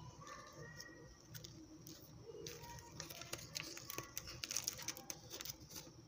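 Packaging of a styrofoam tray of green grapes crackling and clicking as it is handled, the clicks coming thick and fast in the second half.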